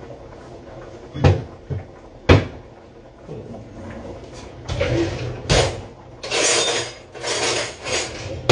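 Kitchen cupboard doors knocking shut twice, about a second apart, then several seconds of rattling and scraping as a drawer is opened and its contents handled.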